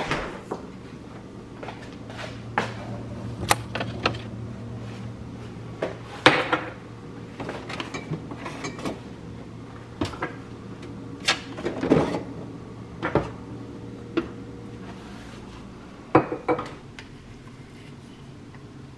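Irregular knocks, clicks and clatters of kitchen handling: a stiff stainless steel refrigerator door being tugged open, its freezer drawer pulled out and food and cookware moved about, over a low steady hum.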